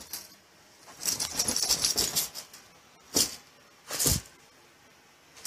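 A dog moving about on carpet: a run of quick, scratchy rustles lasting just over a second, then two short, sharp sounds about a second apart.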